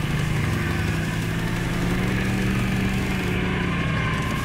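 Suzuki KingQuad 750 ATV's single-cylinder four-stroke engine running steadily under way on a dirt trail, a constant even drone.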